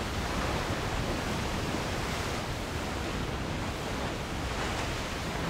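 Steady roar of a waterfall and its churning white water, a constant rushing hiss.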